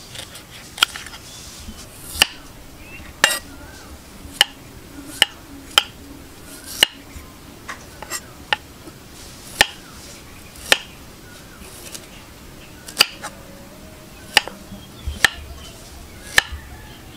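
Kitchen utensils knocking sharply and irregularly during food preparation, about sixteen single clicks and knocks with a short bright ring, with a pause of about two seconds before the last few.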